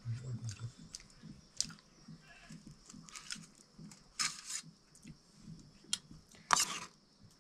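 People chewing and eating a soft meal of buckwheat dhindo with potato curry, with a few short, sharp eating noises mixed in.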